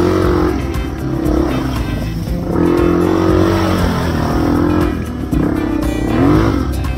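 Honda XR 250 dirt bike's single-cylinder four-stroke engine running under throttle on a muddy trail, its pitch rising and falling, with a quick rev about six seconds in. Background music plays over it.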